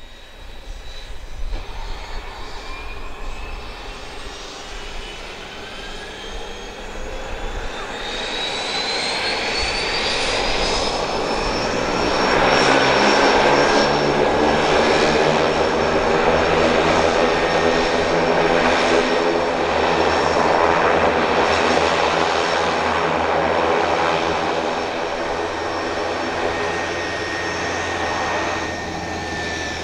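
Quest Kodiak 100's Pratt & Whitney PT6A turboprop spooling up at the start of a run: a high whine rises steadily for about the first twelve seconds, then the engine and propeller settle into a steady, loud idle.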